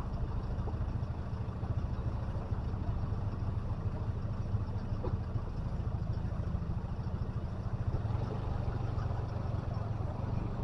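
Vehicle engine running with a steady low hum that holds an even pitch and level throughout.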